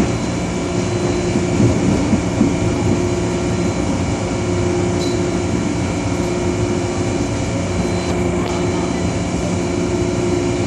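MTR Island Line metro train running at a steady speed, heard from on board: a constant rumble with a steady humming whine that holds its pitch.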